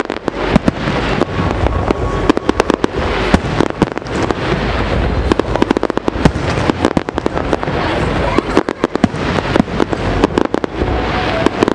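Aerial fireworks shells bursting in a dense, rapid run of loud bangs, many each second at irregular intervals, over a continuous low rumble.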